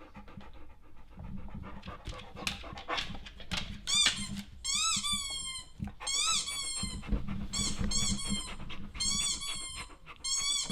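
Squeaky-toy sound effect played through a TV speaker: quick runs of high-pitched squeaks in several bursts, starting about four seconds in. A dog pants throughout.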